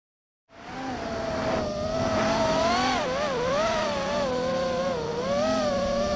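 FPV racing quadcopter's electric motors and propellers whining, the pitch wavering up and down as the throttle changes in flight. The whine starts about half a second in.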